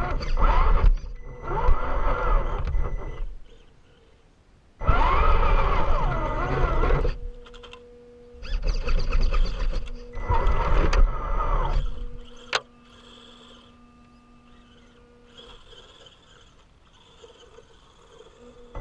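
Radio-controlled rock crawler's electric motor and gears whining in three bursts of throttle, the pitch rising and falling, over rumble of the drivetrain and tyres. A sharp click comes just after the last burst, then only a faint steady hum.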